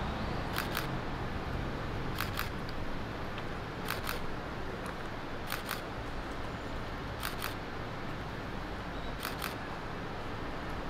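A camera shutter firing six times, a shot about every one and a half to two seconds, each one a quick double click, over a steady low background rumble.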